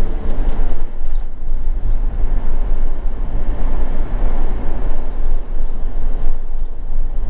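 Motorhome driving along at steady speed, heard from inside the cab: a continuous low engine and road rumble.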